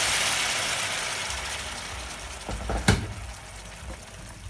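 Hot water poured into a hot pan of fried meatballs and cauliflower sizzles and hisses, dying away over the first few seconds. About three seconds in, a wooden spoon knocks against the pan a few times as it stirs.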